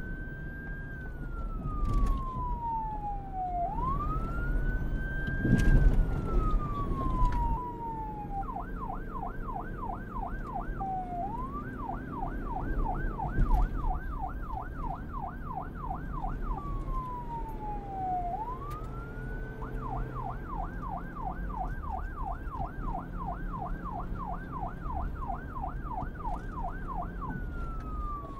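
Police car siren switching back and forth between a slow wail, rising and falling, and a fast yelp of about three sweeps a second, with a low rumble underneath.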